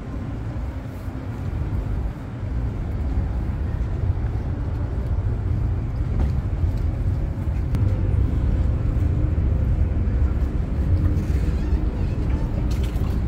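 Low, steady outdoor rumble with no distinct events, growing a little louder about two seconds in.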